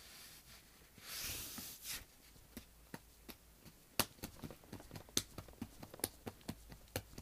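Fingers tapping and clicking on a carrot-shaped orange object: sharp, irregular taps a few times a second. A brief rustle comes about a second in.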